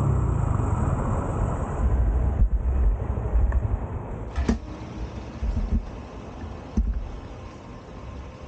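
Honda Grom's small single-cylinder engine running during a ride, with wind rushing over the microphone. A couple of sharp clicks come about halfway through and again a little later, and the sound gets quieter in the second half.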